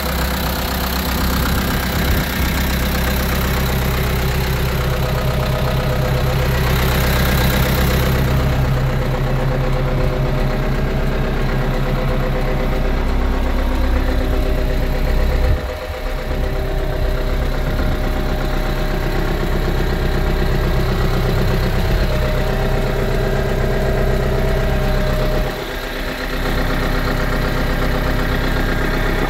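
A 1985 Ford 7610 tractor's four-cylinder diesel engine idling steadily at about 1,000 rpm.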